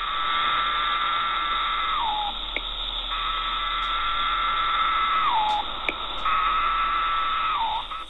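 Male periodical cicada (Magicicada septendecim, Brood X) giving its "pharaoh" courtship call. Three steady, high buzzes of about two seconds each, each dropping in pitch at its end.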